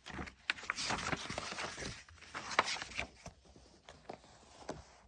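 Paper pages of a paperback picture book being turned and smoothed flat by hand: a crisp rustle with a few sharp crackles, louder for the first three seconds, then faint.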